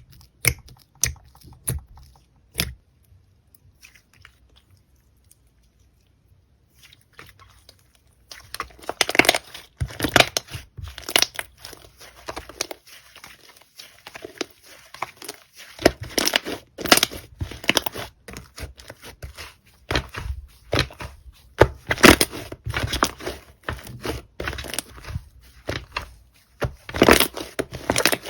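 Slime being squeezed and poked by hand, making crackles and pops. A few sharp clicks come at the start, then a short lull, then dense runs of crackling for the rest of the stretch.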